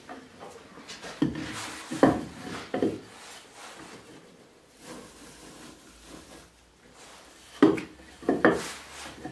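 Wooden boards being set down and shifted into a wooden clamping jig: a cluster of wood-on-wood knocks about a second in, another near the end, and quieter scraping between.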